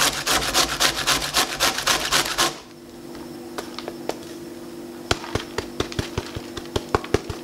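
Cauliflower rubbed fast against a metal box grater on a plastic cutting board: quick, even rasping strokes, then about two and a half seconds in the rasping stops and only scattered light clicks and taps follow.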